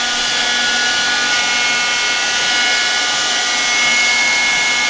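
Hard-floor vacuum cleaner motor running with a steady whine and rushing air.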